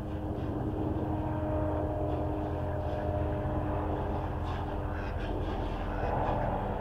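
A steady engine drone with a low hum and a couple of held tones, growing a little louder about a second in.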